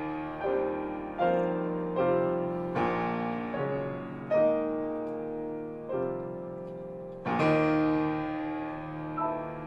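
Piano played live: slow chords struck roughly once a second, each left to ring and fade before the next.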